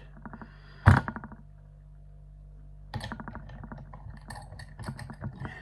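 Small metal clicks and rattles from an ISEO van slam lock and picking tools being worked by hand: a sharp knock about a second in with a quick rattle after it, then a run of irregular light clicks from about three seconds in.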